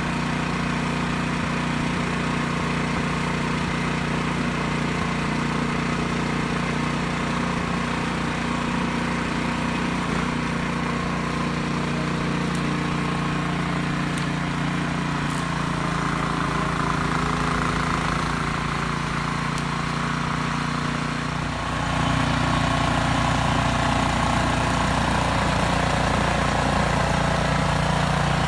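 An engine running steadily at idle, growing a little louder and deeper about twenty seconds in.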